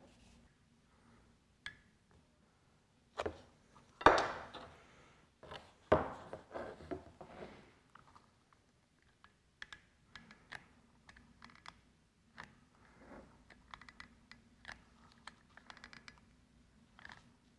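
Handling sounds while hot-gluing a strip brush into a 3D-printed dust shoe: a few sharp knocks, the loudest about four seconds in, then a run of light clicks and scratches.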